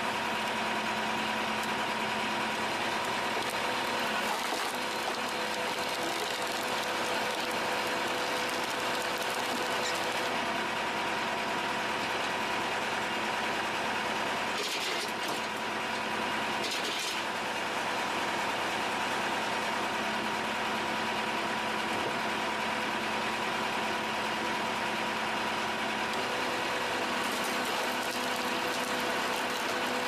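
Tractor-driven hydraulic log splitter running with a steady engine and pump hum, with a few sharp knocks around the middle.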